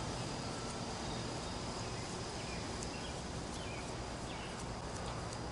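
Quiet outdoor background: a steady low noise with a faint high steady tone, and a few faint bird chirps a little past the middle. No clear sound from the hands screwing the small knob onto the shaft.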